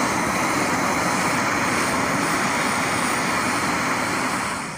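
Gas burner of an Etekcity canister camp stove burning with a steady, loud hiss, quieter near the end.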